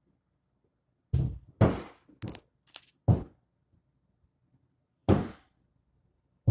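A series of separate knocks and thunks, about six, from hand work on the tubing and parts at the back of a refrigerator. They begin about a second in and are irregularly spaced, with a gap of about two seconds before the last ones.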